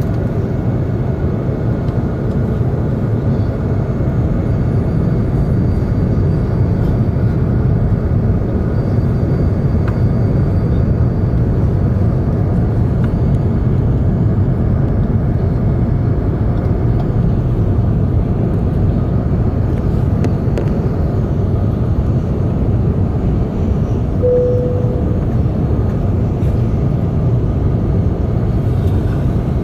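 Airliner cabin noise in the upper deck of an Airbus A380-800 in flight: a steady, deep rumble of its Rolls-Royce Trent 900 engines and the airflow over the fuselage. A short single tone sounds about three-quarters of the way through.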